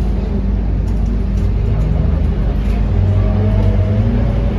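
Scania K230UB bus's five-cylinder diesel engine heard from inside the cabin, running steadily under road noise while the bus moves. Its pitch and level rise a little about three seconds in as it accelerates.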